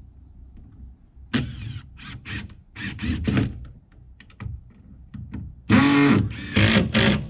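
A cordless drill/driver runs in short bursts, driving screws into wooden trim. Clicks and knocks of handling come between the bursts, and the loudest bursts come near the end, the motor's pitch rising and falling as the trigger is squeezed.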